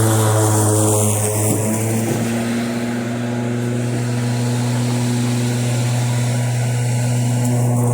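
Ryobi 40-volt battery-powered lawn mower running steadily while mowing grass: a constant hum from the spinning blade, easing slightly about three seconds in.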